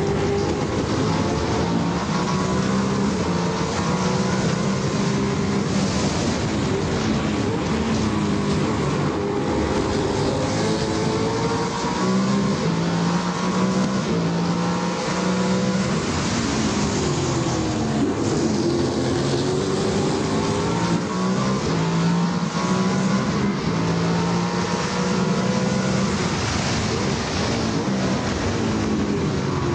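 Formula 5000 racing car's V8 engine heard onboard at racing speed, revs climbing through the gears and falling away with downshifts, twice dropping sharply under braking.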